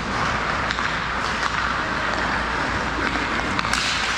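Ice hockey play in an indoor rink: a steady hiss of skates and arena noise, with a few scattered sharp clacks of sticks and puck, the sharpest just before the end.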